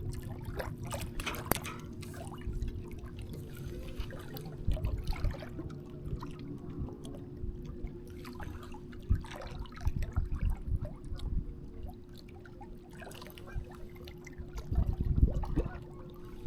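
Reservoir water lapping and trickling at the bank, over a steady low hum, with scattered small clicks. Low rumbling swells come and go and are loudest about 15 s in.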